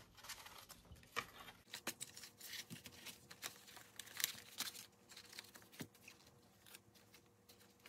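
Faint rustling of paper bills and a clear plastic binder envelope being handled, with scattered light clicks.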